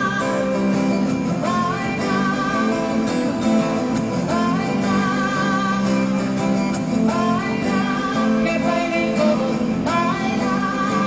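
A woman singing a rock-pop song live, accompanying herself on a strummed acoustic guitar, with several long held notes sung with vibrato.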